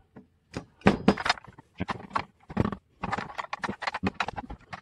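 Hard plastic parts of a 1:32 scale toy truck clicking and knocking as they are handled and worked on at the bench, with a quick run of rapid clicks in the second half.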